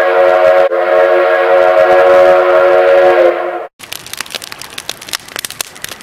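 Train horn sounding a chord of several steady tones, broken once briefly, then held for about three more seconds before cutting off. Then a campfire crackling with many small pops and snaps.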